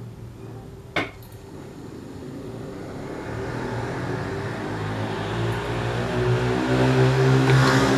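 A motor vehicle's engine with a low hum, growing steadily louder over several seconds as it approaches. A single sharp click about a second in.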